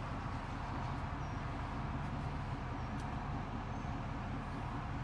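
Duramax 6.6 L V8 turbo-diesel of a 2020 GMC Sierra 2500HD idling, a steady low hum heard from inside the cab, with a faint click about three seconds in.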